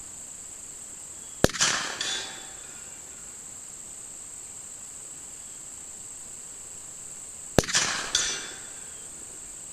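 Two rifle shots from a Winchester Model 94 lever-action rifle, about six seconds apart, each with a sharp crack followed by a short rolling echo. Crickets chirp steadily in the background.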